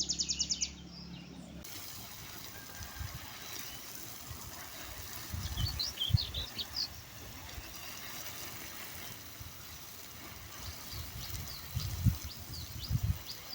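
Outdoor ambience with birds chirping now and then, in two short spells, along with a few low thuds. About a second and a half in, the sound changes abruptly as a new stretch of audio begins.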